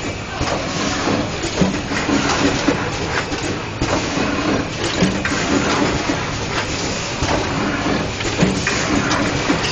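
LH 200 automatic screen printing machine for glass bottles running: steady loud mechanical noise with irregular clicks and knocks from its moving parts.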